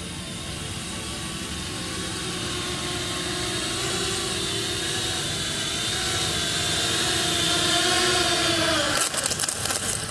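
A 6-inch FPV quadcopter's T-Motor Velox 2207 motors and Gemfan 6045 propellers whine with a wavering pitch, growing louder. About nine seconds in, the pitch falls sharply and the whine breaks into a rapid crackle of clicks.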